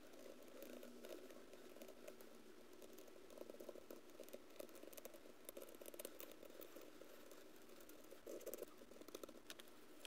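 Near silence, with faint scratchy rubbing and light clicks from a cotton swab and cloth being worked over a small pocketknife.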